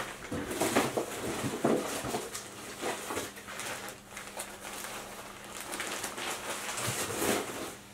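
Rummaging through fly-tying materials to find a rooster hackle: irregular rustling with small clicks and knocks.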